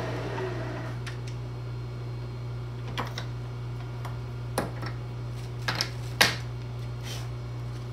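Sharp metal clicks and knocks, about half a dozen spread over the seconds, the loudest about six seconds in, as a brass workpiece and the vise on a milling machine are handled, over a steady low hum.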